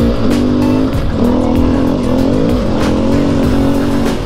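KTM enduro motorcycle engine being ridden hard. Its pitch climbs and drops several times with the throttle and gear changes.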